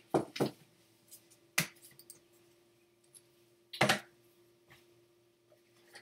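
Kitchen containers and utensils being handled: a few sharp clinks and knocks, two close together at the start, one more a second or so later, and the loudest clatter about four seconds in.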